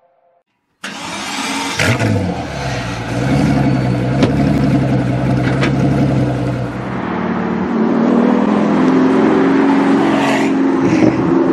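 Pagani Huayra's Mercedes-AMG twin-turbo V12 running. It cuts in suddenly about a second in with a quick rev, runs at a steady low idle, then runs at higher, rising revs through the second half with the car under way.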